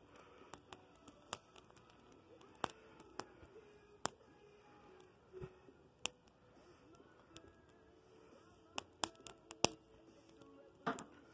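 Dead tree branches burning in a small charcoal grill bowl, crackling with sharp, irregular pops and a quick run of several pops near the end.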